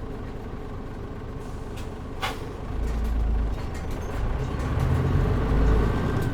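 Mitsubishi Fuso Aero Star (KL-MP37JM) city bus diesel engine heard from inside the cabin, running low, with a short sharp burst of air about two seconds in. The engine then pulls harder and grows louder as the bus moves off.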